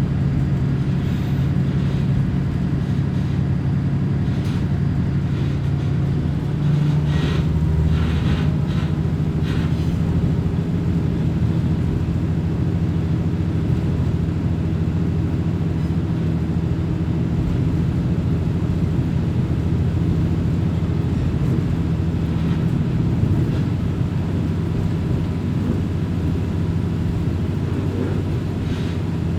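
Kominato Railway diesel railcar running, heard on board: a steady engine drone that steps up in pitch about seven seconds in, with a few clacks soon after. Near the end the engine note drops lower as power is eased.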